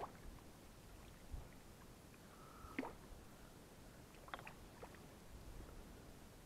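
Faint sounds of a yellow peacock bass hooked on a surface lure: a small splash right at the start as it strikes, then a few faint splashes and taps as it thrashes at the surface against the branches, over a low rumble.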